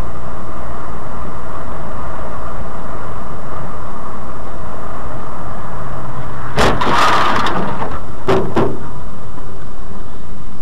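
Loud, steady engine and road noise inside a large vehicle's cab, recorded by its dashcam. About six and a half seconds in, a loud rushing burst lasts about a second, followed by two short knocks.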